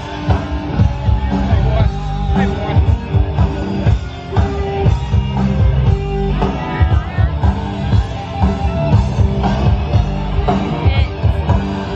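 Rock music with a steady drum beat.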